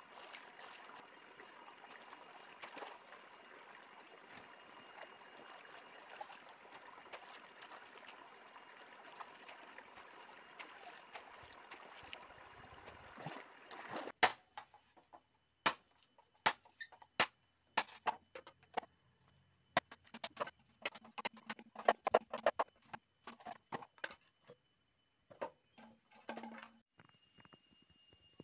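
Shallow muddy stream water washing steadily around wading legs, then about halfway in a run of sharp, separate splashes as the legs kick and stir the water.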